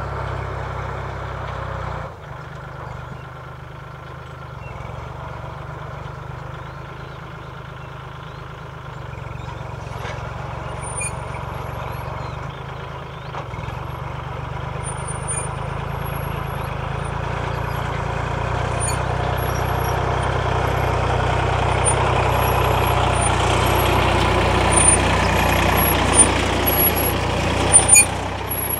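Kubota L3608 tractor's diesel engine running steadily as it pulls a six-disc plough through dry, cloddy soil, growing louder as the tractor comes closer. A few sharp knocks near the end.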